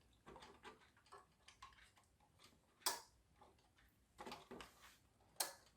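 Faint scattered clicks and taps of small plastic parts being handled and fitted together on a toy RC car's steering, with one sharper click about three seconds in and a short run of taps just after four seconds.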